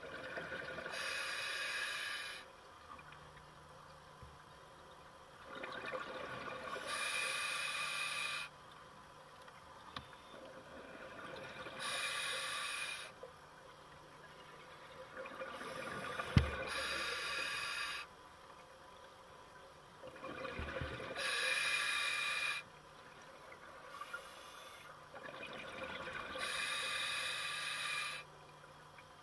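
A scuba diver breathing through an open-circuit regulator underwater: six slow, steady breaths, one about every five seconds. Each breath is a hiss followed by a louder rush of exhaust bubbles that stops sharply. A single sharp knock comes about halfway through.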